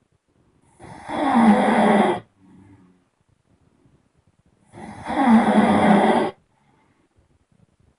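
A person snoring loudly: two long rasping snores about four seconds apart, each about a second and a half long, with silence between.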